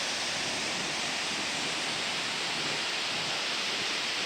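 Steady rushing of the Siffleur River as it pours through a narrow rock gorge: an even, unbroken roar of white water.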